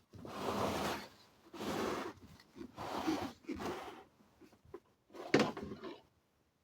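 Four bursts of scraping handling noise, each about a second long, with short pauses between them.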